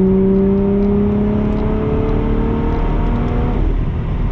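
Lotus Evora's supercharged 3.5-litre V6 pulling under acceleration, its pitch rising steadily for about three seconds, then falling away about three and a half seconds in, over steady road noise.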